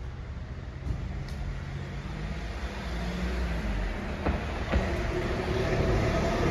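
A car passing along the street, its engine and tyre noise growing steadily louder as it approaches. Two short clicks come a little past halfway.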